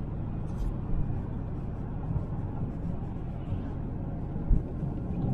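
Inside the cabin of a 2003 Mercedes C200 Kompressor cruising on a wet road: a steady low rumble of tyres and its supercharged 2.0-litre four-cylinder engine, with a sharp thump about four and a half seconds in.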